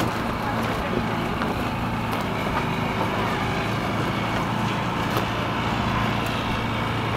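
Steady wind blowing, with a constant low engine-like hum underneath.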